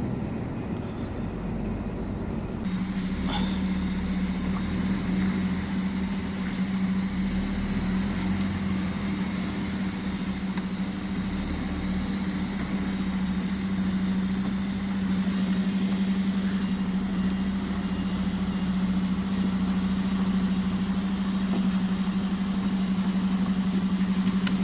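Truck engine and road noise heard inside the cab while driving, with a steady low hum that sets in about two and a half seconds in.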